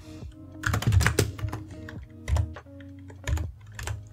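Typing on a computer keyboard: short runs of keystrokes, the busiest about a second in and more near the end, over background music with held notes.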